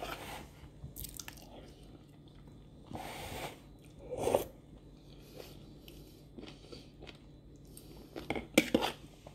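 Close-up eating sounds: wet slurping and chewing, with a loud slurp of stringy food a little after four seconds and a quick cluster of smacks and clicks near the end.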